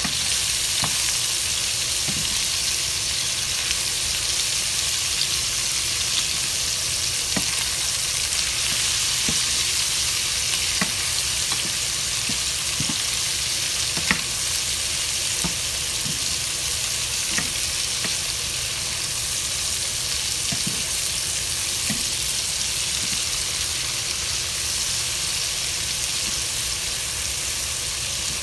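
Beef and sliced onions sizzling in a frying pan, a steady hiss, with occasional light knocks and scrapes of a wooden spoon stirring.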